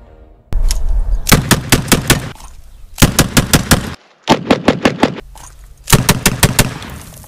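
An 1851 Navy-pattern single-action .36-caliber revolver, tuned as a race gun, being fanned: four quick strings of shots, each string several shots a fraction of a second apart.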